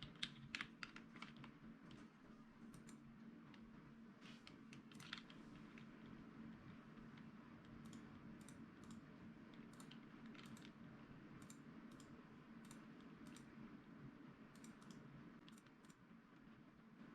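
Faint computer keyboard and mouse clicks: a quick run of clicks near the start, then single clicks every second or so, over a steady low hum.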